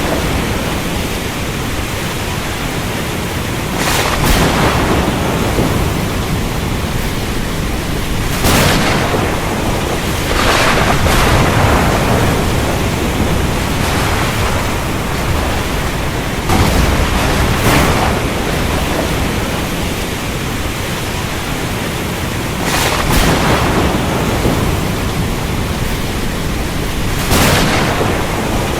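Heavy rain falling steadily in a thunderstorm, with about six thunder cracks and rumbles swelling out of it every few seconds.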